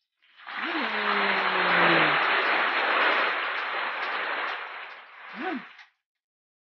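Applause and cheering, with a long drawn-out cheering voice near the start. It lasts about five seconds, louder than the talk around it, and cuts off sharply, like an added praise sound effect.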